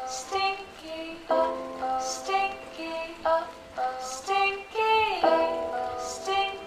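Background music: a melody of held notes stepping up and down in pitch, with a short hissy accent about every two seconds.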